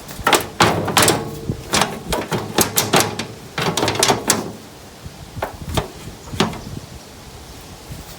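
Sharp knocks and clanks of hand work on a ride-on lawnmower's seat mounting: a quick run of them through the first half, then three more spaced out.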